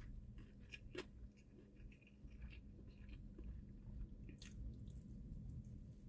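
Faint chewing of egg-roll kimbap (rice and vegetables rolled in seaweed and an omelette wrap): soft mouth sounds with a few sharper clicks, one about a second in and another about four and a half seconds in.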